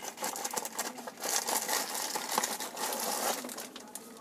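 Clear plastic packaging bag around a phone mount crinkling and rustling as the mount is pulled out of its cardboard box. The crackles are irregular, busiest from about a second in until near the end.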